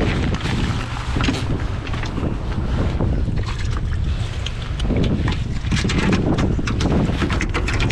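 Wind buffeting an open-air microphone, with rustling and short clicks from a rain jacket and hands moving close to it.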